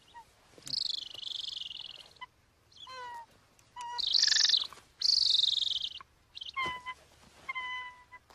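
Trapped golden eagle calling while being handled: three harsh screams, each about a second long, with shorter clear yelping notes between them.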